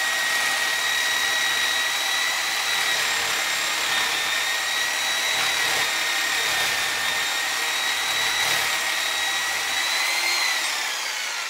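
Electric grinder running with a steady high-pitched whine as it grinds on the steel of the engine stand. A little after ten seconds the pitch lifts briefly and then falls as the motor winds down.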